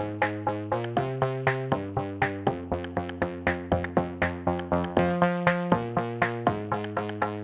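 Electronic background music: a steady drum-machine beat of about four hits a second under synthesizer chords that change about once a second.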